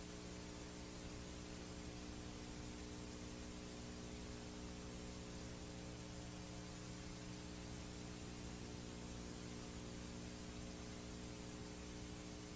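VHS tape playback noise: a steady hiss with a low, unchanging hum made of several steady tones beneath it.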